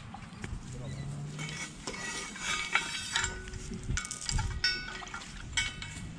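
Takeaway food packaging being handled, a run of crinkling, rustling and small clicks and knocks, busiest in the second half, with a few brief squeaks.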